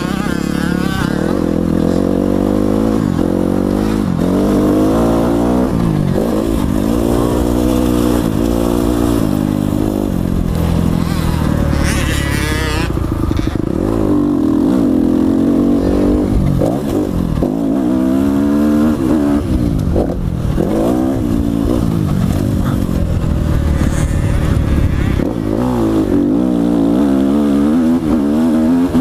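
Kawasaki KX250F four-stroke single-cylinder motocross engine being ridden hard, its pitch repeatedly climbing under throttle and dropping at each shift or chop of the throttle. A brief rush of noise comes about twelve seconds in.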